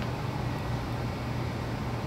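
Steady low hum with an even hiss, with no distinct event: room tone.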